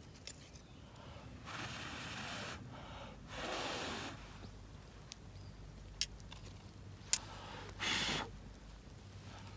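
A person blowing on a small wood campfire to fan the flames: three breathy puffs, the last and shortest near the end. A couple of sharp clicks come between them.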